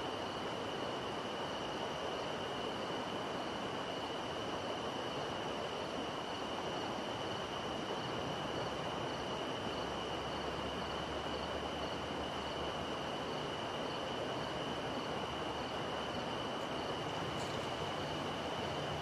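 A steady, high-pitched insect trill, with fainter regular chirps above it, over a constant hiss of night background noise.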